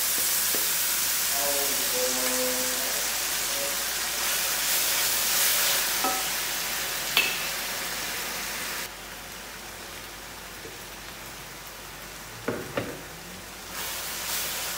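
Ground spice paste sizzling as it is poured into hot oil in a wok and stirred with a spatula. The sizzle drops about nine seconds in and picks up again near the end, with a few clicks and knocks along the way.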